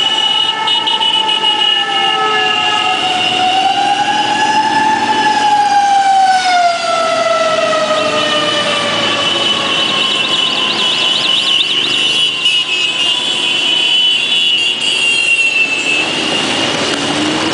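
A siren wailing, its pitch wavering and then winding slowly down, with a steady high-pitched tone held throughout. Underneath is the noise of a slow procession of motorcycles riding past.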